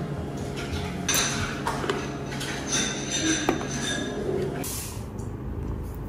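Café room noise: dishes and cutlery clinking now and then over a steady low hum that stops near the end.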